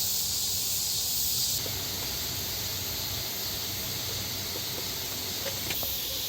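Steady outdoor ambience dominated by a high hiss over a low rumble. Its character changes abruptly about a second and a half in and again near the end.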